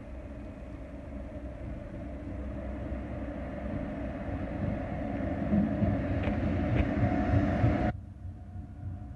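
Siemens Eurorunner diesel locomotive hauling an alex passenger train, approaching through the station with a low engine rumble that grows steadily louder as it nears. The sound drops abruptly about eight seconds in.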